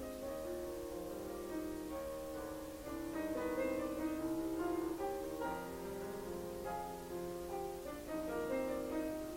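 Piano being practised by an amateur player: chords and melody notes played through, somewhat louder about three seconds in.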